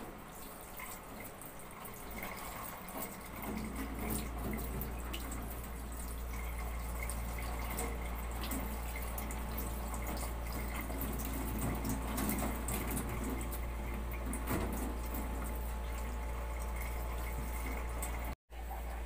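Kitchen tap running into a stainless-steel sink as squid is rinsed under it by hand, the stream splashing over hands with small clicks and drips. The sound breaks off for a moment near the end.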